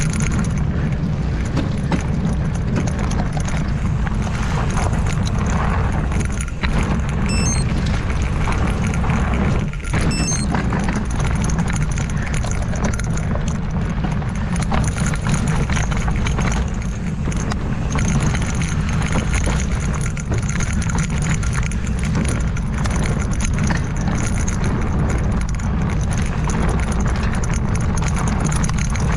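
Mountain bike descending fast on steep dirt trail: wind rumbling heavily on the microphone over a constant clatter and rattle of the bike and its tyres on the ground.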